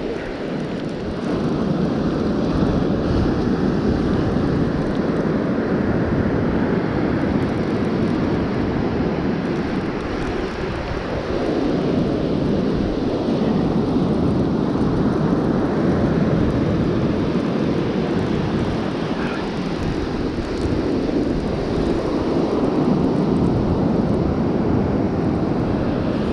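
Wind rumbling on the microphone over surf breaking on a sandy beach. The noise is steady and low and slowly swells and eases every several seconds.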